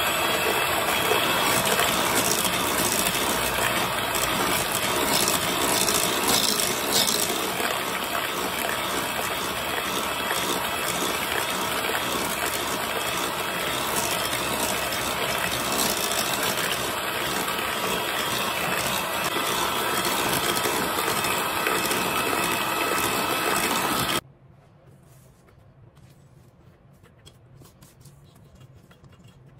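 Electric hand mixer running steadily, its beaters whirring through thick cake batter in a stainless steel bowl; it cuts off suddenly about 24 seconds in. After that, faint scraping of a silicone spatula against the bowl.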